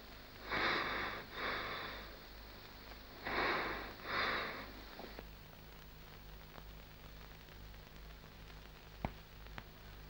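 A person breathing heavily, two breaths in and out in quick pairs during the first half, then only faint hiss from the soundtrack with a couple of soft clicks near the end.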